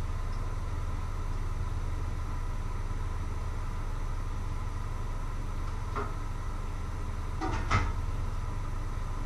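Steady low hum with a faint whine, broken by a light clink about six seconds in and a louder short clatter near the end, cookware being handled on the stove.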